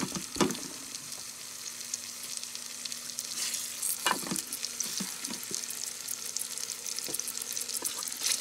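Thin-cut pork chops sizzling and crackling as they sear in butter and avocado oil in an Instant Pot Gem's pan, with a few knocks as tongs move them about, the clearest about four seconds in.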